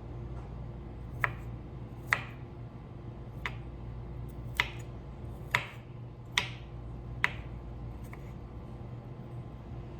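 Seven sharp taps, irregularly spaced about a second apart, with a fainter one near the end, over a steady low hum.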